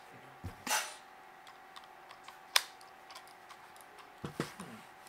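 A Logitech G502 gaming mouse and its small plastic parts being handled on a table: scattered clicks and light knocks, a short rustle near the start, and one sharp click about halfway through.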